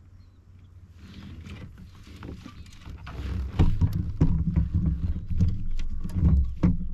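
Bass being landed and handled aboard a kayak: a jumble of knocks, thumps and clatter against the hull with a low rumble, growing much louder about three seconds in.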